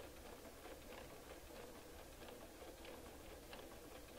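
Bernina 153 sewing machine running slowly, sewing tiny straight stitches around an appliqué: faint, soft ticking of the needle mechanism over a low hum.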